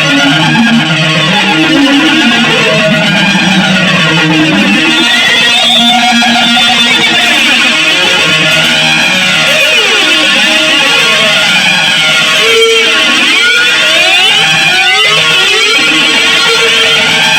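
Loud, chaotic noise jam on electric guitar, a dense wash of notes with sweeping pitch glides bending up and down throughout.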